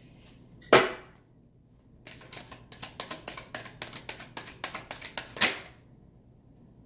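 Tarot cards being shuffled overhand by hand: a sharp slap of cards about a second in, then a quick run of light card flicks for about three seconds, ending in another sharp slap.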